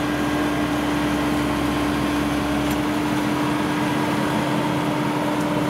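WD 102PRO rice combine harvester's engine running steadily as the tracked machine creeps forward: an even drone with one strong constant hum.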